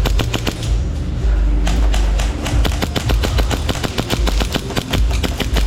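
Airsoft guns firing in rapid bursts of sharp snapping shots, several a second, with a steady low rumble underneath.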